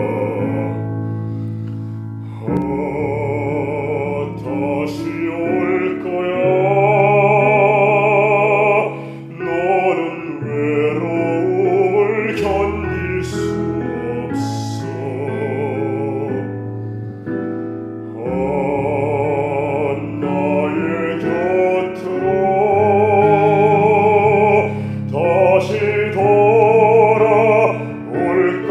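A man singing a slow, sad ballad in an operatic style, with wide vibrato on long held notes, over a backing track of sustained chords. It is an early recording of the plain voice, made without studio equipment.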